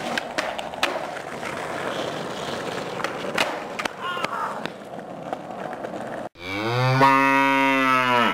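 Skateboard wheels rolling on asphalt with several sharp clacks of the board as the skater bails and the board shoots away. After a brief cut, a long, loud, low moo whose pitch rises at the start and drops away at the end.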